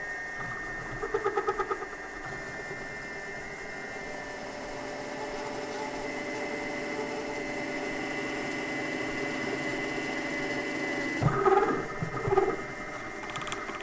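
Mini mill spindle running slowly with a steady motor whine while a step drill cuts into a metal plate. It pulses briefly about a second in, and there are two louder bursts of cutting noise near the end as the drill bites.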